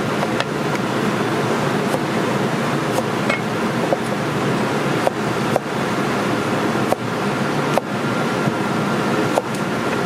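Chinese cleaver slicing through food onto a wooden cutting board: short, sharp knocks at an uneven pace, about one a second. They sit over a loud, steady rushing noise.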